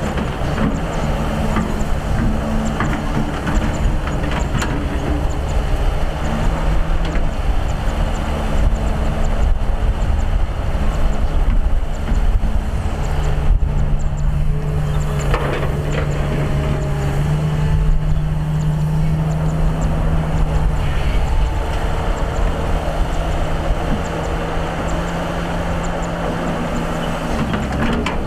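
Excavator's diesel engine running under load, its pitch stepping up twice in the middle and dropping back near the end, with a few short knocks.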